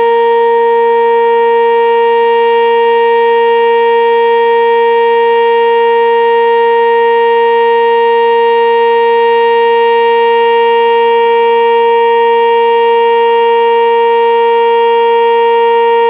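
Sentry 10V2T two-tone electromechanical storm siren sounding its steady alert signal at full speed, holding one unchanging, loud pitch during a tornado-warning siren test.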